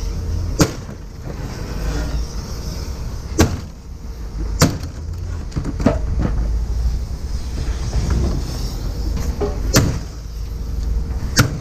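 Vehicle driving, a steady low road rumble, broken by about six sharp knocks or clunks at irregular intervals.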